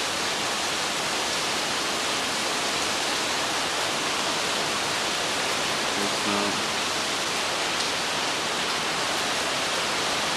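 Heavy rain pouring down in a thunderstorm: a dense, steady hiss.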